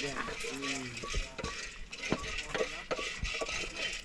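Coffee beans being stirred in a pan as they roast: irregular scrapes and clicks of the stirring utensil against the beans and pan.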